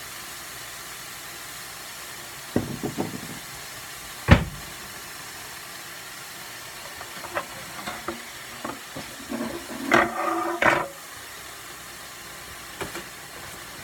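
Steady hiss of food cooking in hot oiled pans, with utensils knocking and clattering against the cookware; one sharp knock about four seconds in.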